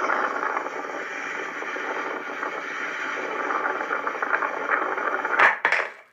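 Steady background din of a busy indoor space, with two sharp knocks near the end before the sound cuts off abruptly.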